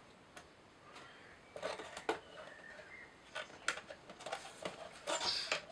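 Small clicks, taps and rustles of laser-cut plywood kit parts being handled and pressed together, starting after about a second and a half of near quiet, with a denser rustle near the end.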